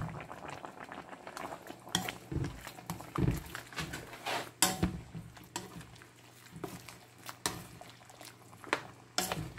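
Ladle stirring in a pot of chicken broth, with scattered light clicks and knocks as it touches the pot, over a faint steady low hum.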